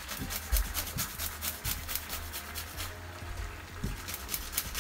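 Garlic cloves rubbed on a hand grater: quick, regular rasping strokes, over a steady low hum.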